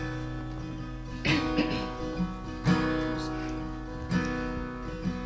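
Acoustic guitar strummed unaccompanied by voice, a chord struck about every second and a half and left ringing: the instrumental opening of a song.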